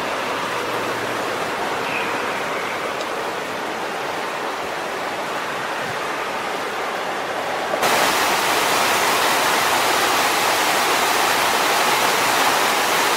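Rushing creek water running steadily over rapids. About eight seconds in it turns suddenly louder and brighter.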